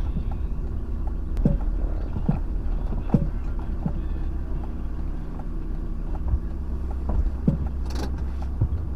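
Inside the cab of a Volkswagen T4 van driving slowly: a steady low engine and road rumble, with several short knocks and thumps along the way.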